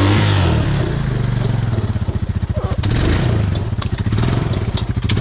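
A four-wheeler's engine running, its revs falling about a second in to a slower, pulsing beat, with a few sharp clicks.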